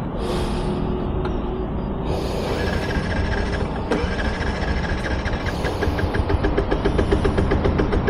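Street traffic noise, joined about five seconds in by a small engine's even, rapid chugging that grows louder.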